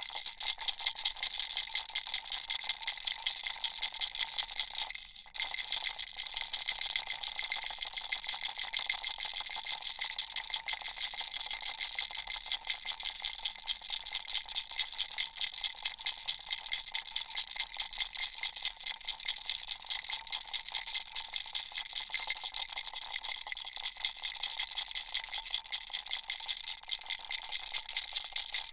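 A turtle-shaped baby rattle shaken continuously, a dense, rapid rattling of small pieces inside, with a faint steady ringing tone under it. The shaking stops for a moment about five seconds in, then resumes.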